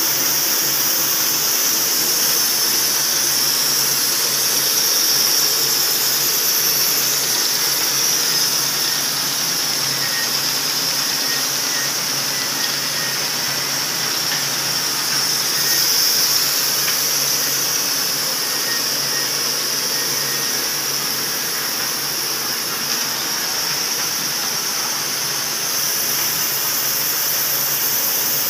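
Automatic carton folder-gluer (pasting machine) running with cartons going through its belts and rollers: a steady, high-pitched machine noise with a faint low hum underneath.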